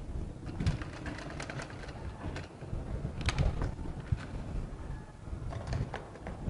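Sewing machine stitching through fabric, a low running hum with scattered irregular clicks.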